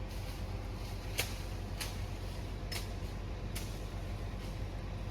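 Heavy tracked machine's diesel engine running with a steady low hum, with sharp clicks every second or so, loudest about a second in.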